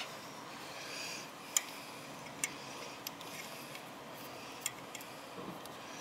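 Hands handling the wiring and brake line on a motorcycle frame: four or so sharp, scattered clicks over faint background noise.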